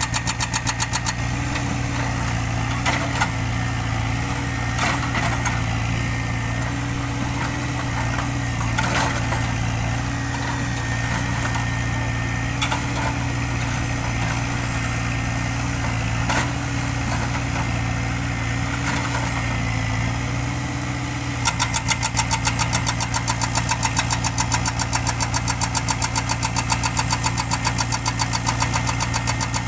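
Heavy diesel engine running steadily with a low hum. A rapid, even pulsing sits over it at the very start and again through the last third, and a few sharp clanks come in between.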